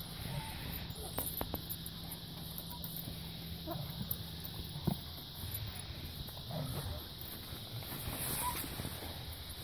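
Swing set in use: short squeaks from the swings and a few sharp clicks of the chains, one louder clack about five seconds in.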